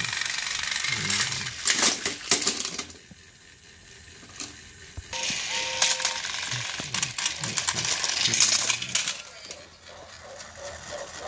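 Motorized plastic toy train engines running against each other on plastic track: a steady whirring of their small gear motors, broken by sharp plastic clicks and clattering. The whirring quietens for a couple of seconds, then starts again. A short electronic tone from the interactive talking engines sounds about five seconds in.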